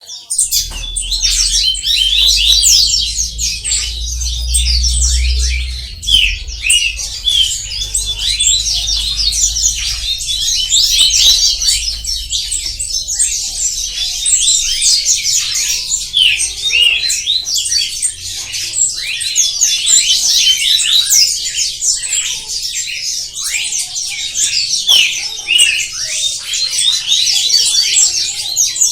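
Many small birds chirping and chattering together, a dense, continuous mass of overlapping high calls. A low rumble sits under the birds for the first six seconds or so.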